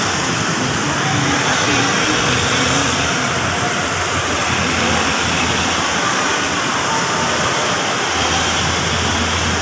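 Steady hum of road traffic and vehicle engines, with a lower engine drone coming in about eight seconds in.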